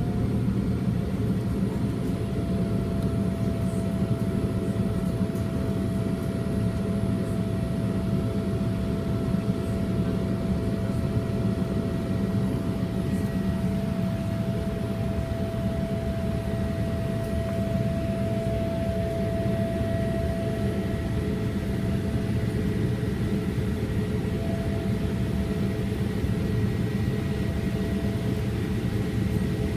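Boeing 787-8 airliner's jet engines running: a steady low rumble with a few faint, steady whining tones over it.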